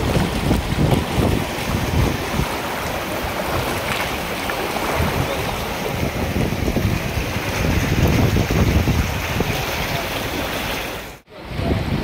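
Kosi River floodwater rushing at the barrage, a steady loud roar of water, with wind buffeting the microphone. The sound drops out for a moment near the end.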